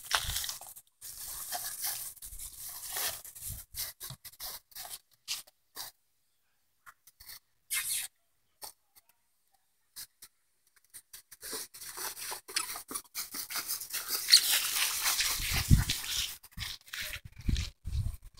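Olde English Bulldogge puppies playing: scattered scratching, scuffling and small knocks from paws and bodies, with a near-silent lull in the middle before a longer bout of scuffling and a few low thumps.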